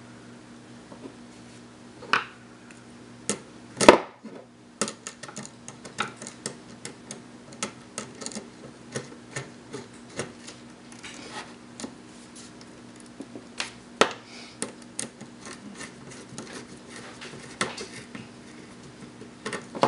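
Small irregular clicks and scrapes of a screwdriver working the screw terminals of a metal-cased switching power supply as a wire is fastened down, with wire and tool handling. There is one louder knock about four seconds in.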